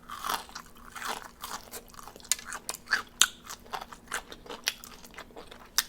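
A person chewing crispy fried chicken wings close to the microphone: irregular sharp crunches, a few every second, with wet chewing between them.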